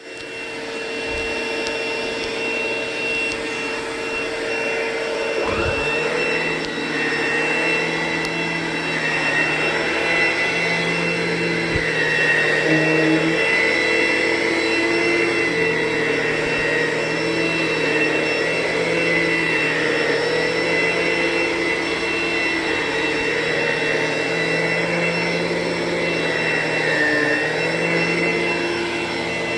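ProTeam ProForce commercial upright vacuum cleaner running on carpet: a steady motor whine over a rushing air noise, its tones wavering a little as it is pushed back and forth. About six seconds in, one tone rises in pitch.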